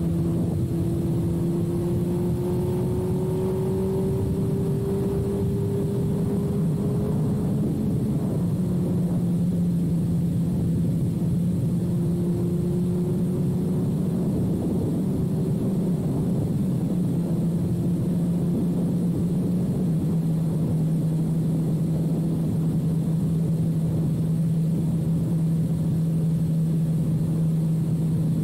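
2006 Suzuki GSX-R1000's inline-four engine through a full carbon/titanium Yoshimura exhaust, running under way at a steady cruise. The note rises gently over the first several seconds, then holds nearly level with small changes in pitch.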